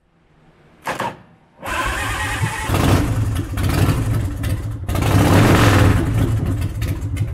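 2004 Big Dog chopper's 117 cubic inch S&S V-twin cranks briefly, catches and runs loudly, revved up twice, through Vance & Hines pipes with no baffles fitted.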